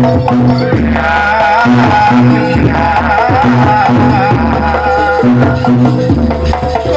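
Traditional jaranan accompaniment music: a percussion ensemble with a rattling beat and repeating deep sustained tones, joined about a second in by a wavering, ornamented melody.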